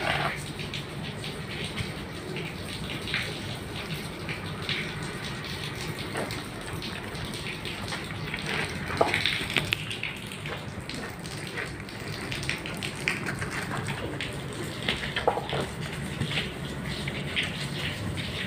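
Cooling tower water falling and splashing with a steady rain-like hiss and scattered sharp crackles, over a low steady hum.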